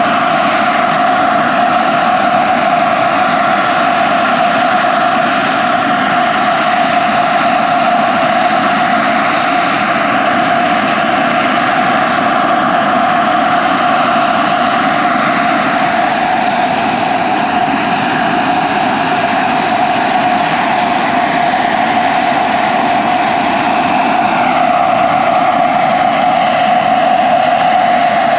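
JetCat PHT3-XL model turbine of a large-scale RC Bell 430 helicopter running with a steady whine in a low hover, over the rotor's noise. The whine gets a little stronger near the end as the helicopter climbs.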